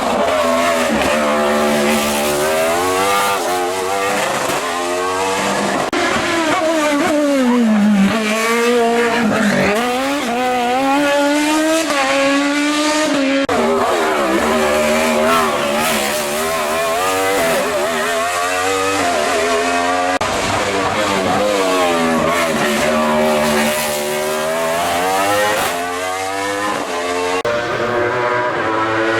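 Racing car engine on a hill climb, driven hard: its pitch climbs and falls again and again as it accelerates, changes gear and lifts off.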